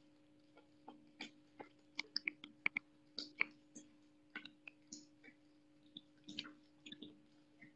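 Young otter chewing on a raw catfish: an irregular run of short wet clicks and crunches as it bites and works the fish, over a faint steady hum.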